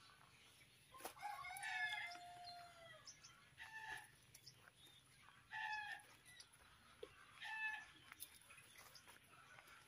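A rooster crows once, faintly, about a second in, a call of about two seconds that falls in pitch at the end. Three short clucking calls follow at even intervals.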